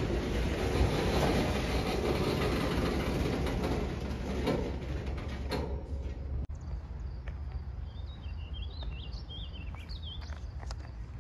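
GE B40-8 locomotive running close past, its 16-cylinder diesel engine and steel wheels on the rail making a loud, steady noise. About five and a half seconds in this drops away abruptly to a quieter, low diesel rumble, with a few short bird chirps over it.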